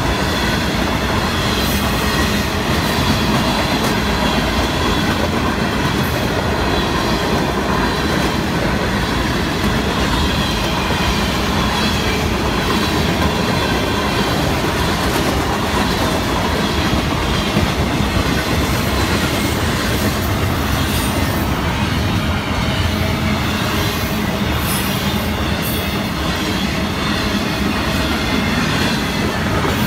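Florida East Coast freight cars (autoracks, tank cars and double-stack intermodal cars) rolling steadily past: a continuous rumble and clatter of steel wheels on the rails.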